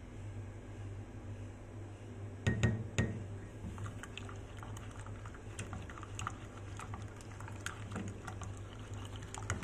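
Utensil and ceramic mug sounds as honey is mixed into blended green juice: two sharp knocks about two and a half seconds in, then a run of light, irregular clicks and taps, over a steady low hum.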